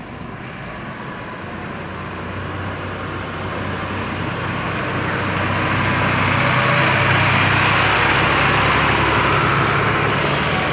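Heavy bus engine running, growing steadily louder to a peak about seven seconds in, then easing a little.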